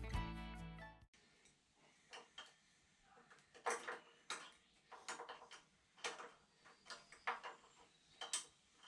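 Background music that ends about a second in, followed by light, irregular clicks, roughly one or two a second, of a spanner being worked on a pipe fitting during engine assembly.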